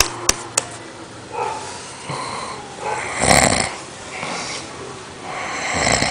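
A man in deep drunken sleep snoring: two big snores, about three seconds in and near the end, with softer breaths between. Two sharp clicks sound just after the start.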